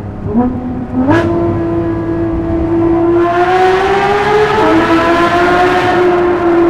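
Porsche 911 GT3 RS naturally aspirated flat-six engine at full throttle through a tunnel, heard with the windows down. A quick rev jump and a sharp crack come about a second in, then the revs climb under hard acceleration, drop at a gearchange about four and a half seconds in, and ease off near the end.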